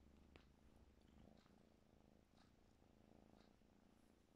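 A kitten purring faintly and steadily, with a few soft rustles as its claws catch in knitted fabric.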